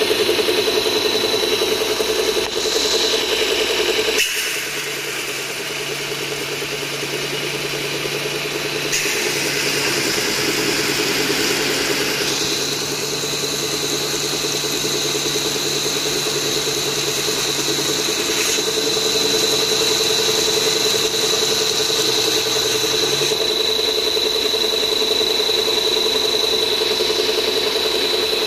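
Sanding-belt flat polishing machine running: a steady mechanical hum with a thin high whine over it. The sound shifts abruptly in pitch and level several times.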